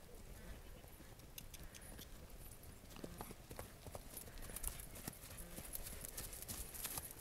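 Hoofbeats of a Welsh pony mare ridden across a grass arena: a run of soft, irregular clip-clops that grow louder near the end as the pony comes close.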